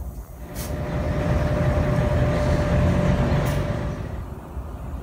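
Diesel locomotive engine running, its rumble swelling over the first second or so and staying loud with a steady whine before easing near the end. Short hisses of compressed air come about half a second in and again near the end.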